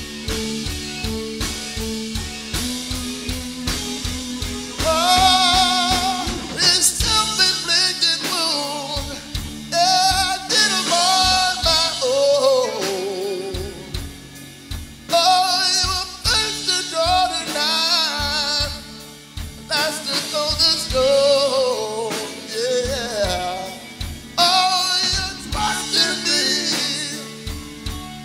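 A band playing an instrumental break of a rock song: a steady drum beat and held bass and chord notes, with a lead melody of bent, wavering notes entering about five seconds in and playing in phrases.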